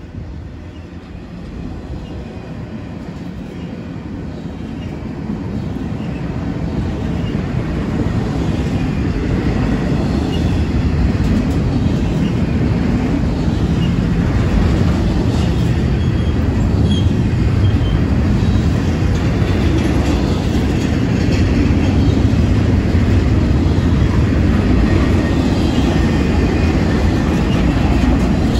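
Double-stack intermodal freight train cars rolling past: a steady rumble of steel wheels on the rails that grows louder over the first ten seconds or so, then holds.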